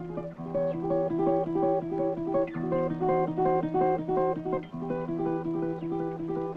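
Music: acoustic guitar picking a steady run of plucked notes over a held low note, as a film score.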